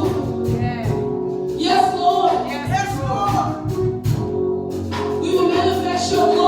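Gospel worship music: singing over held instrumental chords, with a pulsing low beat underneath.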